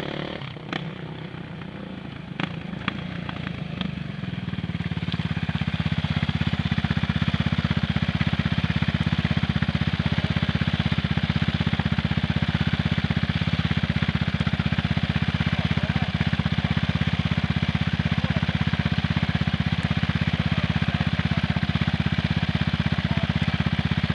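Sport quad (ATV) engine coming closer and growing louder over the first few seconds, then idling steadily close by. There are a few sharp clicks near the start.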